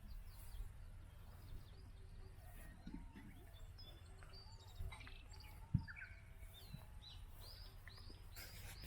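Faint birds chirping outdoors, many short calls and quick rising and falling notes, over a steady low background rumble. One soft thump about six seconds in.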